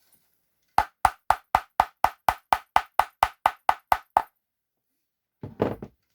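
Beech wood heels of a pair of flamenco shoes clapped against each other: about fifteen sharp, even wooden knocks at roughly four a second, then a brief handling noise near the end.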